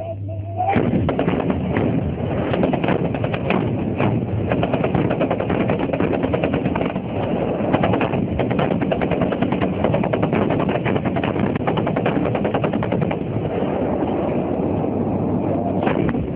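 Several truck-mounted anti-aircraft guns, PKMZ machine guns and S-60 cannon, firing together. It is heavy automatic fire in rapid, overlapping reports that starts about a second in and carries on without a break.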